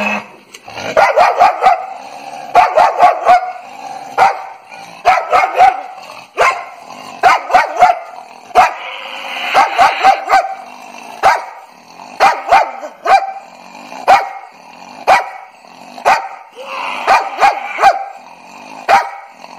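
German shepherd cross dog barking aggressively in quick clusters of two to four barks about every second, with snarling growls between the barks: full aggression towards a person.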